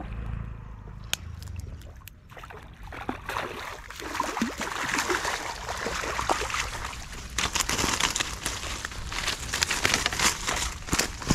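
A hooked rohu carp splashing and thrashing at the water's edge, then crackling and rustling through dry grass and weeds as it is dragged up the bank. The sound turns into a dense crackle with many sharp clicks about three seconds in, loudest in the second half.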